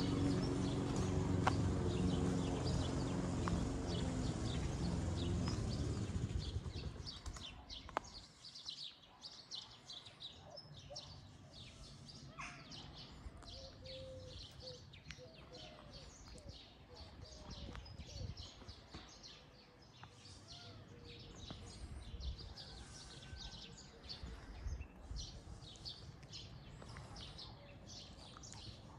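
Small birds chirping and singing in the trees, many short high calls. A low buzzing hum is loud in the first several seconds and dies away about seven seconds in.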